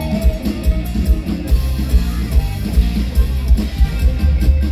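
Live mor lam band music played loud through a stage sound system: a steady drum-kit beat with a heavy bass line and keyboard and guitar parts.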